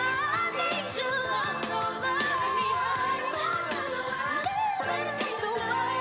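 Female singer belting a soulful gospel-pop ballad over band accompaniment, her voice sliding through high, wavering runs.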